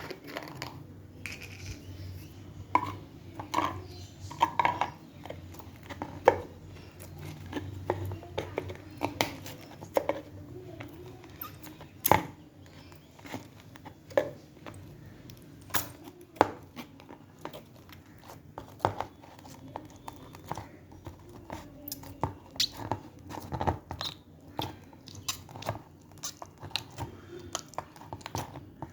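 Slime being squeezed and pressed by hand, giving irregular wet clicks and pops.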